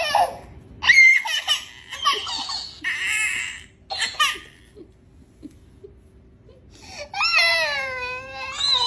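A baby crying: a run of short sobbing cries over the first few seconds, a pause, then a long wavering wail near the end.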